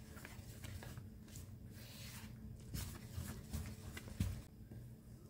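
Spatula stirring flour into the liquid for a carrot cake batter in a plastic mixing bowl: faint, irregular soft scraping strokes.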